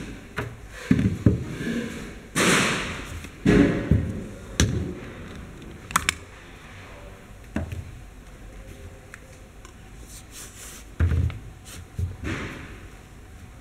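Lever grease gun being loaded with a grease cartridge by hand: irregular knocks and clatters of the metal gun parts and the plastic cartridge being handled and set down on the bench, with a longer scraping rustle about two and a half seconds in.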